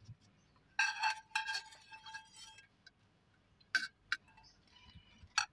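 A spatula scraping and clinking against a small frying pan as a fried egg is lifted out onto a plate; the pan rings briefly about a second in. A couple of light taps follow near the end.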